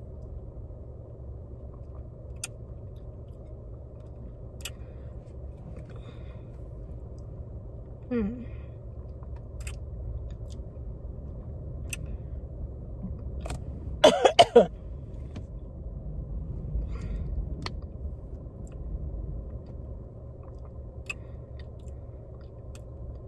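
A person coughing three or four times in quick succession, about two-thirds of the way through, over a steady low rumble with scattered faint clicks.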